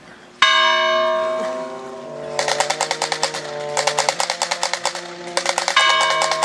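Bells ringing: a loud bell strike about half a second in, then three runs of rapid, even clanging, about ten strokes a second. Long ringing tones carry on underneath, and a second loud strike comes near the end.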